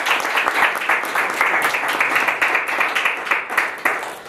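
Audience applauding after a speech, a dense patter of many hands clapping that stops near the end.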